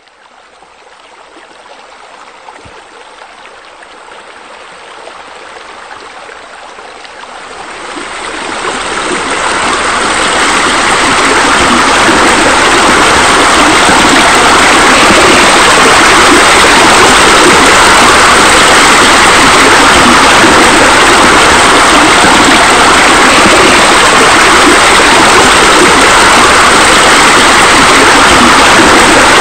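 Steady rushing water, like a fountain or waterfall, fading in over the first ten seconds and then running loud and even.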